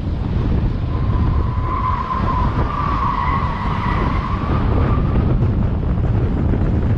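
Car tyres squealing through a bend, a wavering squeal starting about a second in and fading after about four seconds, over steady wind noise on the microphone and road rumble.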